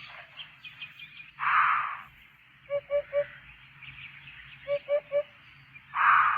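Hoopoe calling its low 'oop-oop-oop': two sets of three short, evenly spaced hoots, about two seconds apart. Other birds chirp faintly throughout, and two short loud noisy bursts come about a second and a half in and near the end.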